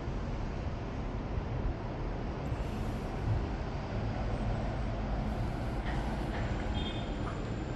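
Old sewing machine running with a steady, continuous mechanical clatter.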